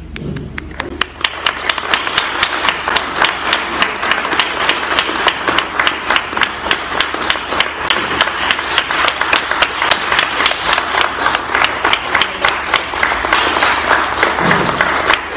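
Audience applauding: many hands clapping, building up about a second in and then holding steady.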